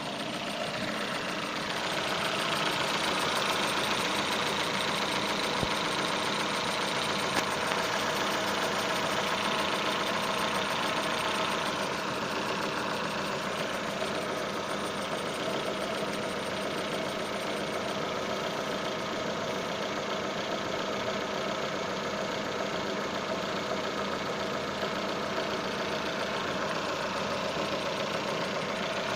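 Datsun on-DO engine running steadily, with its alternator drive belt whistling. The sound gets a little louder about two seconds in.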